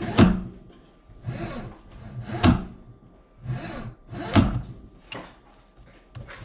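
A pull-down kitchen faucet's spray hose rubbing and sliding as the spray head is pulled down out of the spout and let back. Between the stretches of rubbing come three sharp knocks, about two seconds apart.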